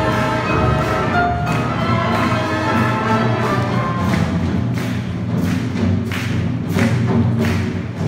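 Wind band with drums playing a swing tune: sustained brass and reed chords, then about halfway through the horns fall away, leaving a steady drum beat of about two to three strokes a second.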